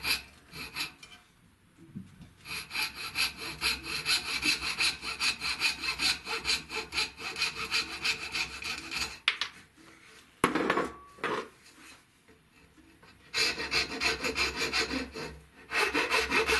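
A fine-bladed coping saw cutting the waste out between dovetail pins in walnut, in runs of quick, rhythmic strokes that stop twice. A sharp knock with a short ring comes partway through, and near the end a flat file starts rasping on the wood.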